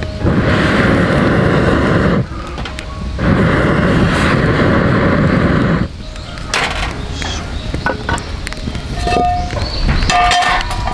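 Two long blows of air through a fire-blowing pipe into a wood fire, each a rushing roar of about two and a half seconds with a short gap between, fanning the flames for high heat. After the blows the burning firewood crackles with scattered small pops.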